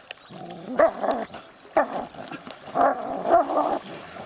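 German shepherd dog vocalizing in the water while tussling with another dog over a stick: several short calls that bend up and down in pitch, about a second in, near two seconds, and a longer run from about three seconds, with water splashing.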